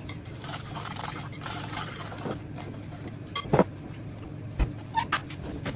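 A utensil stirring banana bread batter (mashed banana, egg and brown sugar) in a glass bowl, scraping and clinking against the glass. A few sharp knocks follow in the second half, the strongest about three and a half seconds in.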